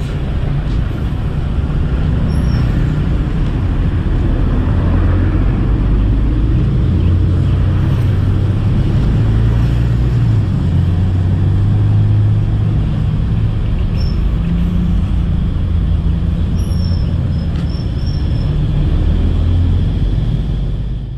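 A large engine running steadily, a low drone whose pitch shifts slightly, with a few short bird chirps above it.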